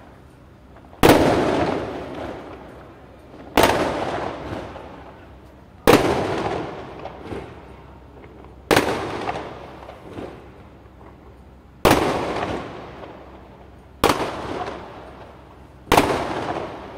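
Aerial fireworks bursting overhead: seven sharp bangs two to three seconds apart, each followed by a long, fading echo.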